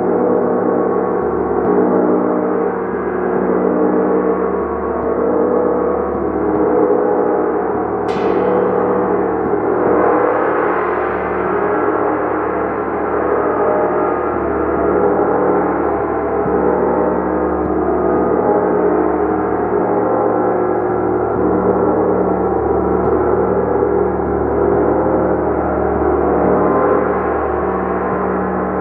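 A large gong played continuously: a dense, sustained wash of overlapping tones that swells and ebbs slowly. About 8 seconds in, a brief high sweep falls quickly in pitch over the drone.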